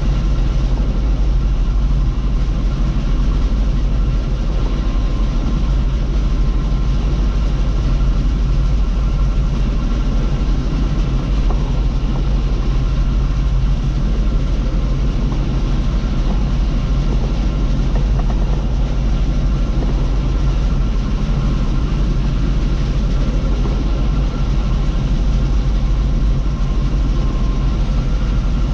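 Bizon ZO-58 Rekord combine harvester running steadily while harvesting triticale: a loud, even diesel engine drone with faint steady high whines above it.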